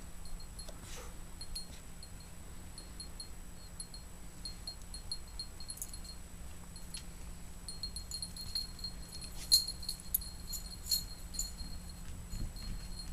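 Dog collar tags jingling in light, irregular metallic tinkles as the dogs move about, growing busier and louder over the last few seconds.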